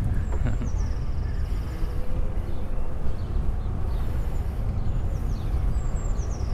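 Wind buffeting and rumbling on the microphone while riding, with a faint thin whine for a second or so in the middle.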